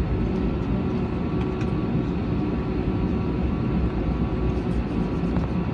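Steady cabin noise inside an Airbus airliner taxiing after landing: a low, even rumble of the engines and air conditioning with a faint steady hum.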